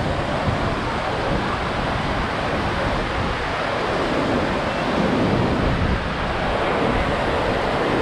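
Steady rush of white water from a rocky mountain stream cascading over boulders.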